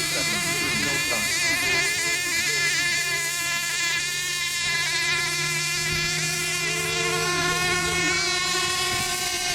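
Several radio-controlled racing boats' motors running on the water together, a high-pitched whine wavering in pitch as they circle. A steady low hum underneath stops near the end.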